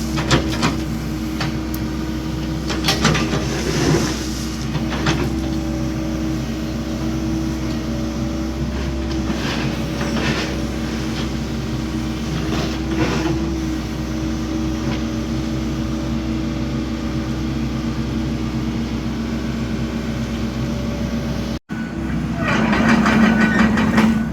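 Excavator engine running at a steady speed, with scattered clicks and knocks of work going on.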